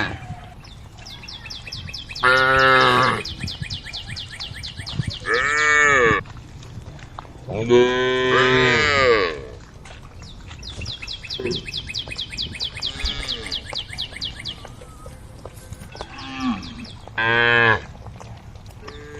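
Cattle mooing: about five calls, some long and drawn out and some short, with pauses between them. A fast, high trill runs in the background between the calls.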